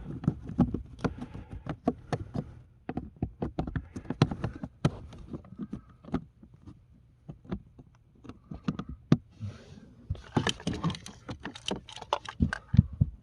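Hands working plastic interior parts of a car's cabin air filter housing: many irregular clicks, taps and knocks, with a denser flurry of clattering and rustling about ten seconds in.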